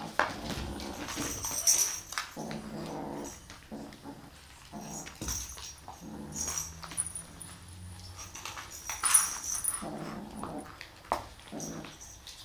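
A kitten growling, short low growls repeated throughout with gaps between them, the guarding growl of a kitten that has caught a pom-pom toy.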